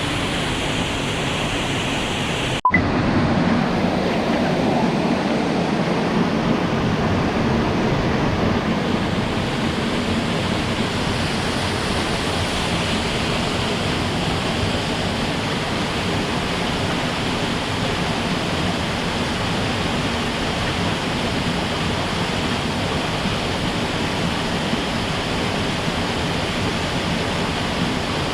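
Rushing water of a mountain stream, a steady even noise. About three seconds in it drops out for a split second, and afterwards the rush is louder and fuller.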